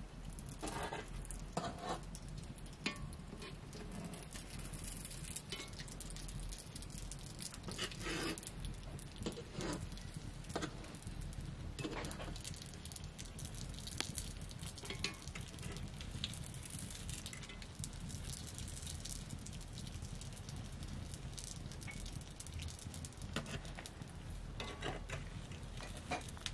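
Bolani frying in hot oil in a wok over a wood fire: steady sizzling with crackling from the burning wood and scattered clicks of a fork and spatula on the pan.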